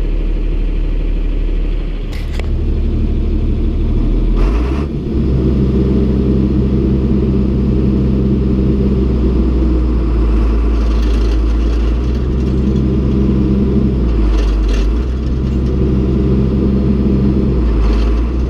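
Farm tractor engine running steadily, its pitch shifting up and down a few times, with brief clunks where the pitch changes.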